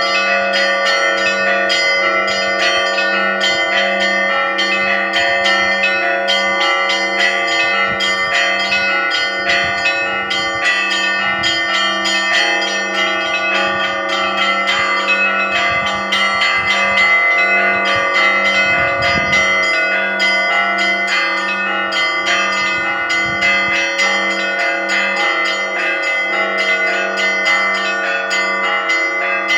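Russian Orthodox church bells ringing a continuous festive peal: several bells struck by hand in a fast, unbroken rhythm, with smaller high bells chiming rapidly over a lower bell struck again and again in a steady beat.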